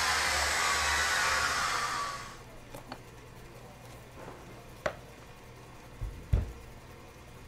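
A loud, even rushing noise over a low hum cuts off about two seconds in. Then, in a quiet room, come a few light clicks and knocks and a dull thump about six seconds in, as hands handle a plastic protective cup on a wooden workbench.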